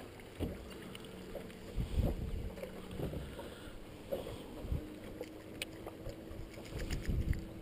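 Bass boat on the water: a faint steady hum with irregular low thumps and knocks, and a few light clicks.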